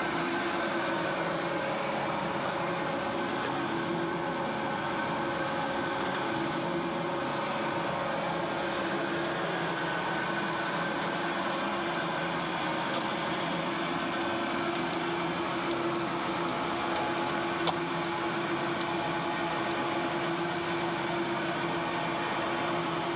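A brick-making plant's pan mixer and belt conveyor running steadily, a constant mechanical hum with a churning rumble. One sharp click comes about eighteen seconds in.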